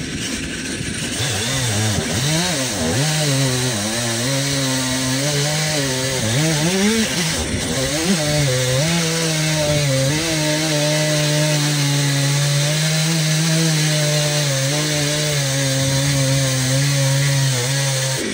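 Stihl MS 362 two-stroke chainsaw running under load as it rips lengthwise through a large log on a 30-inch Archer chainsaw mill. The engine pitch wavers up and down for the first several seconds, then holds steady through the cut.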